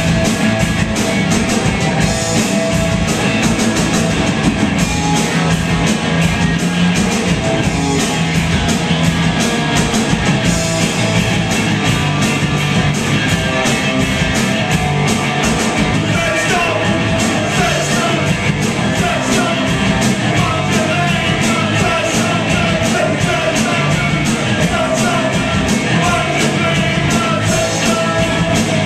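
A live rock band playing loud, with a steady drum beat under the guitars and a singer's voice.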